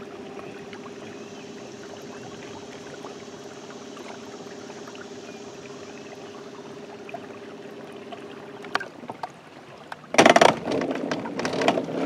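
A small motor humming steadily at one pitch over a faint wash of noise, stopping about nine seconds in; about a second later come loud, irregular knocks and rustling.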